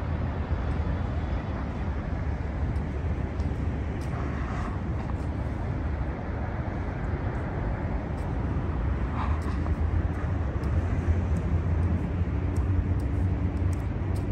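Steady low rumble of city traffic, with two faint brief sounds about four and nine seconds in.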